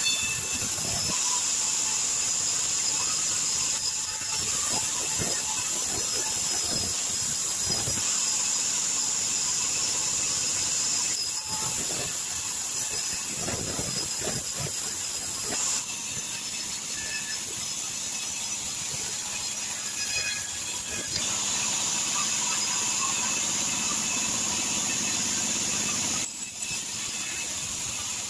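Sawmill band saw running and cutting through a log lengthwise into boards: a steady high-pitched hiss from the blade in the wood, with a few low knocks as the cut board is handled.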